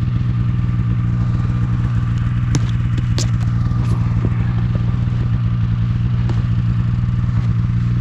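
Snowmobile engine running steadily at an even pitch, with a few sharp knocks between about two and a half and four seconds in.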